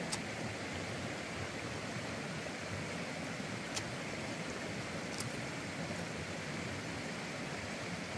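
Person eating a raw cucumber, with a few short crisp bite or chew clicks, the clearest near 4 and 5 seconds in, over a steady rushing hiss.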